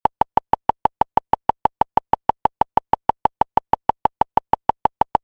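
A rapid, perfectly even run of short electronic beeps, about six a second, all at the same pitch.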